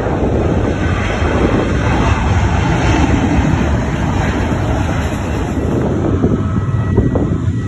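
Steady rumble of jet airliner engines, mixed with wind buffeting the microphone.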